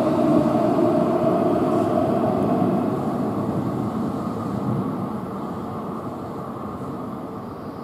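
Keihan 7200-series electric commuter train pulling out of an underground station past the listener. Its running noise and a steady motor hum fade away over the first few seconds.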